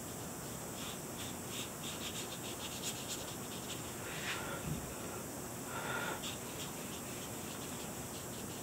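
Watercolour paintbrush stroking and dabbing on drawing paper: many short, soft scratchy strokes over a faint steady hiss. There are two louder soft sounds about four and six seconds in.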